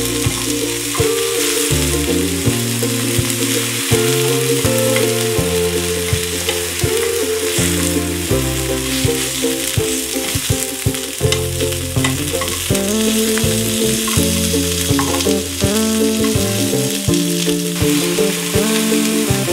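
Tomato halves and garlic cloves sizzling steadily as they fry in hot fat in a skillet, turned now and then with metal tongs. Background music with a bass line runs underneath.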